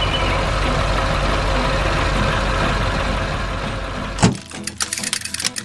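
Heavy truck engine running steadily with a low rumble, cut off about four seconds in by a sharp clank, then a run of quick clicks and rattles.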